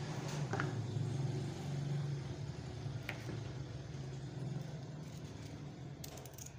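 A steady low motor hum, like a nearby engine running, with two faint knife clicks as carrots are cut on a plastic cutting board.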